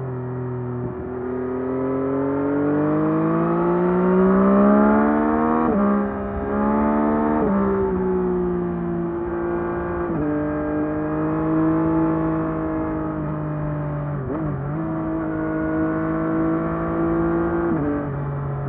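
2024 Yamaha MT-09 SP's inline three-cylinder engine on its stock exhaust, pulling hard with the pitch rising for about five seconds, then dropping sharply twice in quick succession as it shifts up. It then settles into a steady cruise, with a brief dip and recovery near the end.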